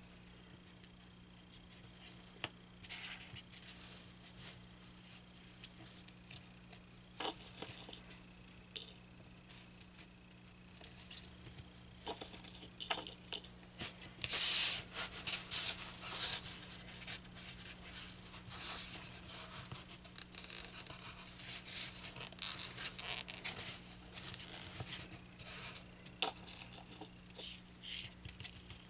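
Irregular short rustles and scrapes of fabric and craft materials being handled and worked, sparse at first and busier about halfway through, over a steady low hum.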